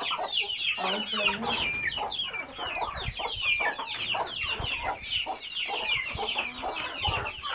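Flock of chickens: young birds peeping constantly in quick, falling chirps, over lower hen clucking.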